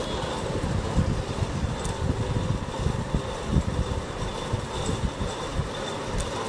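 Uneven low rumbling noise that flutters throughout, with a faint high steady tone above it.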